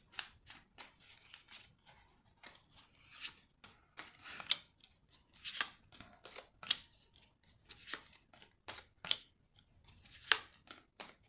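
Tarot cards being drawn, flipped and laid out on a table: a string of crisp, irregular snaps and slaps of card stock, roughly one or two a second.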